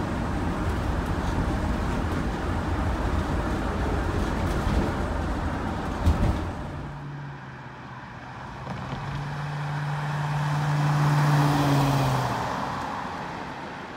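2008 Chevrolet 3500 Girardin mini school bus on the move: first a steady rumble of road and engine noise heard from inside the cab, broken by a short knock about six seconds in. Then the bus is heard from outside driving past, its engine hum and tyre noise growing louder to a peak and then fading as it moves away.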